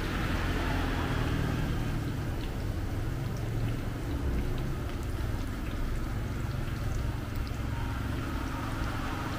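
Battered banana fritters deep-frying in a wok of hot oil: a steady sizzle with small scattered pops, over a low steady rumble.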